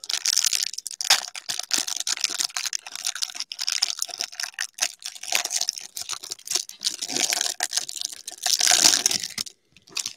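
Plastic cello wrapper of a trading-card pack being torn open and crinkled by hand: a dense run of crackles and clicks that stops shortly before the end.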